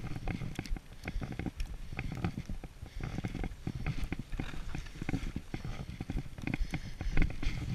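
Skis sliding over snow, with a steady low rumble and many irregular short thumps and scrapes.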